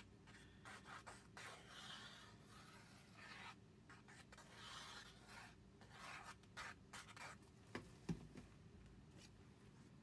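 Faint scratchy rubbing of a squeeze glue bottle's fine tip being drawn over paper, coming in short strokes, with light paper handling and a couple of small knocks about eight seconds in.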